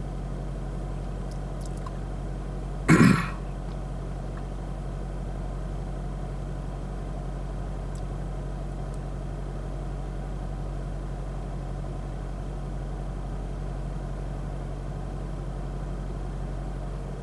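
Chevy Volt's gasoline range-extender engine running steadily at idle in engine maintenance mode, the forced run that lubricates the engine and keeps the catalytic converter in shape after long use on battery alone; it shuts off at the very end as the cycle completes. A single brief loud sound, like a cough, comes about three seconds in.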